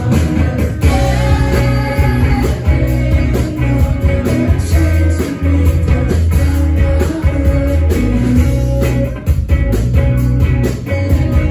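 Live indie rock band playing at full volume: electric guitars, bass, drums and keyboard, with a female lead vocal.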